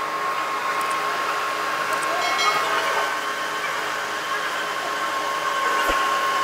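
Large industrial lathe turning a heavy steel shaft: steady whirring machine noise with a constant high whine.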